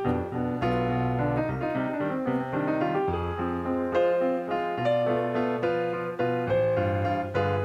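Background piano music: a steady run of struck notes in a gentle melody.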